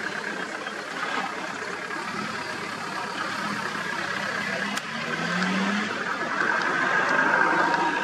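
Vehicle engine idling, a steady running hum that grows a little louder in the second half, with a short low rising sound about five seconds in.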